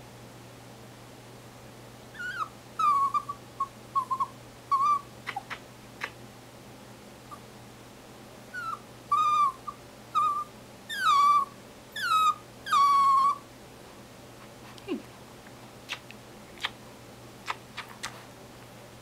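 Papillon dog squeaking: short, high-pitched whines, each dipping in pitch as it starts, in two runs of several squeaks each, an attention-seeking cry. A few sharp clicks near the end.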